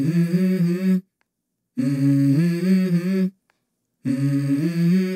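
Music: a voice humming a melody in three short phrases of about a second and a half each, the pitch stepping between notes, with dead-silent gaps between the phrases.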